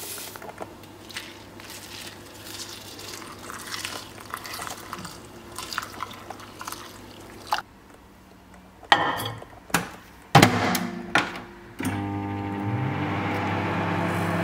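Oats poured into a ceramic bowl. Then a few sharp clicks and knocks as a dial-timer microwave's door is opened, the bowl set inside, the door shut and the timer turned. About twelve seconds in, the microwave starts up with a steady hum.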